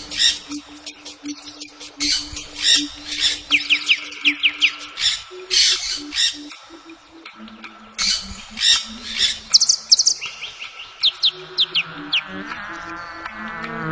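Birds calling: repeated harsh squawks and quick runs of falling chirps, over a low pulsing tone. Near the end a warbling trill comes in.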